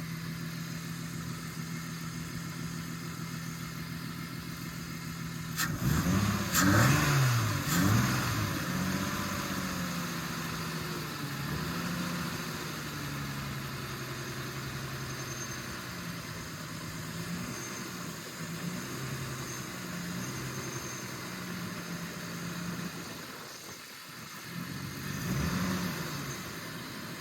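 BMW E36 straight-six running at idle, blipped with a couple of quick revs about six seconds in and revved again near the end; between revs the engine note wavers unevenly. The car is being checked for a misfire that had it running on five cylinders.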